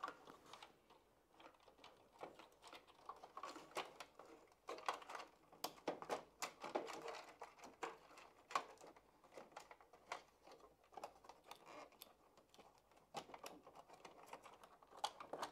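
Faint, irregular small clicks and rustles of plastic wiring plugs and wires being handled and unplugged from a Bosch tumble dryer's control circuit board.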